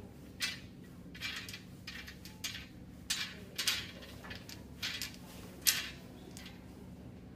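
Wooden beads of a children's bead-maze toy being slid along its wire loops and clacking together, in about eight short, irregular clacks, the loudest near six seconds in.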